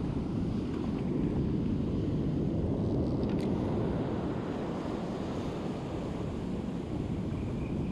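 Surf breaking and washing up a sand beach, with wind buffeting the microphone in a steady low rumble. A single light click sounds about three and a half seconds in.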